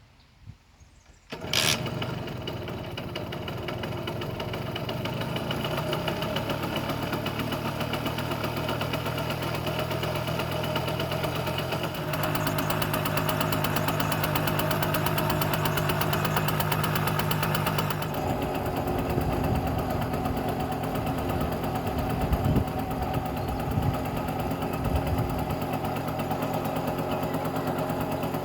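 A 1984 Simson S51 B2 moped's 50 cc single-cylinder two-stroke engine starting about a second in, then idling steadily. The revs rise a little around twelve seconds in and drop back into a less even idle about six seconds later. The engine runs very quietly, which the owners put down to its all-original East German parts.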